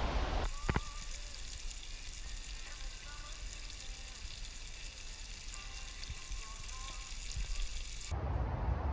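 Bacon frying over a fire pit, a steady sizzle with a few faint bird chirps in the background. The sizzle cuts off abruptly near the end.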